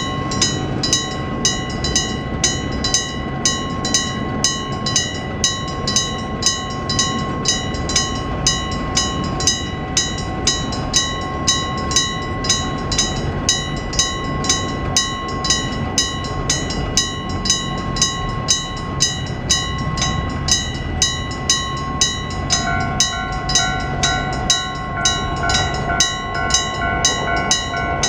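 A level crossing's AC electric warning bell (Nippon Signal EG1003) striking steadily, a little under two strikes a second, each strike ringing on, over the rumble of a train passing. A steady pitched tone joins in near the end.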